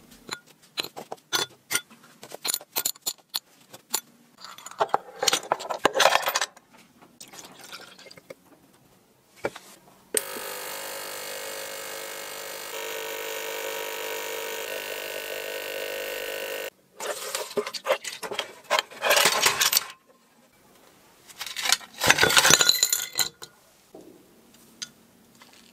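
Rusty small steel saw parts clinking and rattling against each other and a glass bowl as they are handled. About ten seconds in, a small benchtop ultrasonic cleaner runs with a steady buzz for about six seconds, then cuts off. It is followed by more clinks and rattles of the parts.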